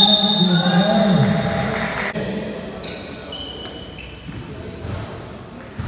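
Basketball game play in a gym: a ball bouncing, short high squeaks of shoes on the court, and a voice shouting in the first second and a half.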